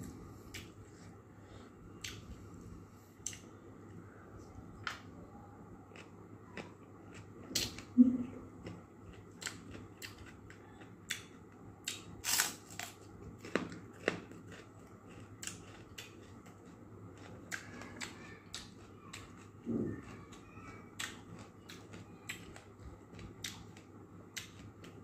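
Close-up eating sounds: chewing with many short, sharp mouth clicks and smacks at irregular intervals, and a few louder clicks now and then.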